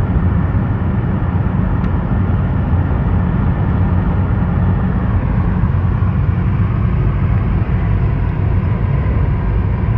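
Steady low rumble of road and wind noise inside a moving car's cabin.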